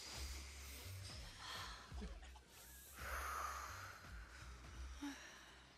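Deep breathing: air drawn in slowly and let out, with a longer, louder breath out about three seconds in.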